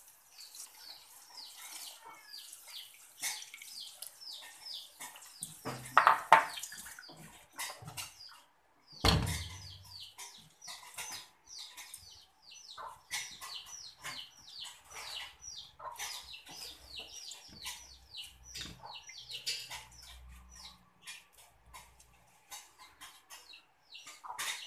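Birds chirping: many short, high, falling chirps a second, going on almost without a break. A loud clatter comes about six seconds in and a sharp knock about nine seconds in.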